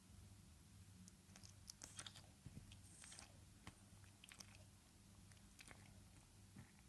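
French bulldog chewing and smacking its mouth softly close to the microphone: a scatter of faint wet clicks.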